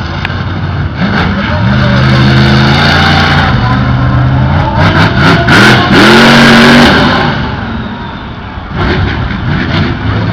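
Monster truck engine running loud and revving, its pitch holding steady at first and then climbing in several rising revs, with a loud roaring rush in the middle before it eases off and revs again near the end.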